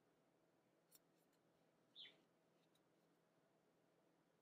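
Near silence: a few faint ticks of a crochet hook and yarn being worked, with one short high chirp falling in pitch about two seconds in.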